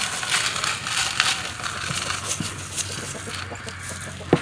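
Coarse salt poured into a large metal cooking pot and spread by hand across its bottom: a grainy hiss with many small ticks of grains on metal, and two short sharp sounds near the end.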